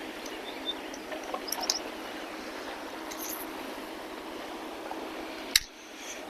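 Steady outdoor background hiss with a few faint scattered clicks and taps, and one sharp click about five and a half seconds in.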